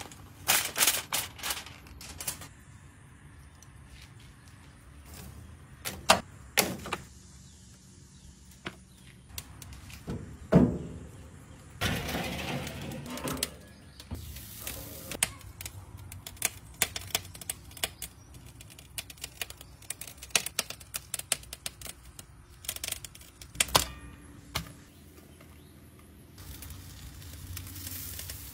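Aluminium foil crinkling as it is pressed over a baking pan, then irregular clicks, taps and knocks of handling, the loudest a few knocks about six, ten and twelve seconds in.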